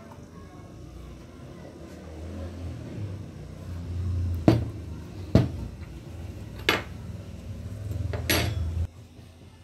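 Milkshake poured into a glass mason-jar mug, then the mug handled and set down on a wooden counter: a low rumble under four sharp knocks and clinks of glass, spread over the second half, with the rumble cutting off near the end.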